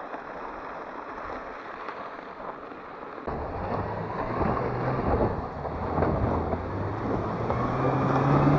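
A gear sled scraping as it is dragged across bare ice. About three seconds in, a Chevrolet Niva's engine takes over, running and revving harder, its pitch rising near the end, as the car tries to get out of the broken ice it has fallen into.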